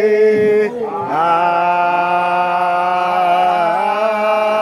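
A man's voice chanting a Kayan parap, the traditional sung chant, into a microphone. A brief break comes just under a second in, then one long drawn-out line is held on a near-steady note with slight wavers.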